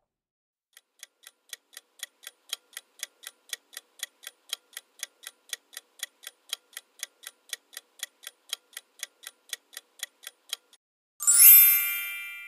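Clock-tick countdown sound effect ticking evenly, about four ticks a second for some ten seconds, then a bright chime rings out and fades near the end, marking time up and the reveal of the correct answer.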